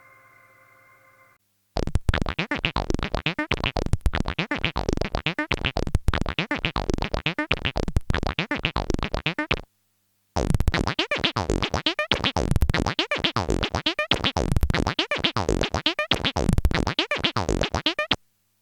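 Access Virus B rack synthesizer playing a fast repeating sequence of sharp notes with sweeping, falling tones, about four a second, in two runs of roughly eight seconds with a brief break between them. A faint held tone from the previous patch fades out at the start.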